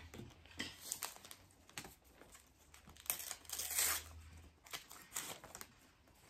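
A foil trading-card pack being torn open and crinkled by hand, in short rustling bursts. The loudest tearing stretch lasts about a second from roughly three seconds in.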